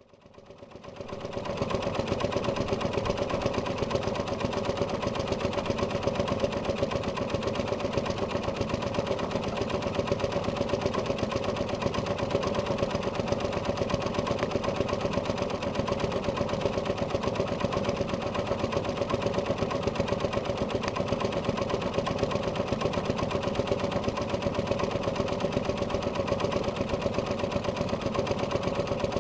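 Old single-cylinder marine engine idling with a steady, even putt-putt-putt. The sound fades in over the first second or two.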